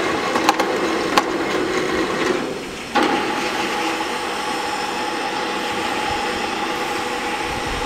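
Electric wire-rope hoist on a 3-ton jib crane running: a motor hum with a few sharp clicks, then, after a short break about three seconds in, a steadier motor whine with one clear tone.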